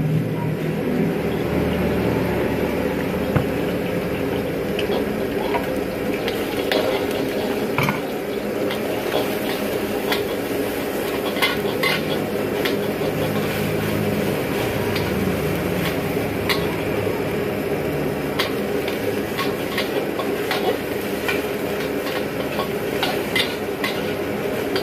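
Beaten egg sizzling in hot oil in a wok, then a metal ladle scraping and clinking against the wok as the egg is stirred and scrambled, with the clinks coming often from about eight seconds in. A steady gas-burner noise runs underneath.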